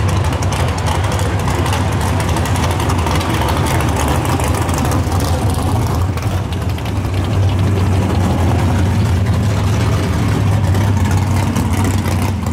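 Drag cars' engines idling loudly and steadily as they roll slowly through the pits, a deep, rapidly pulsing exhaust note.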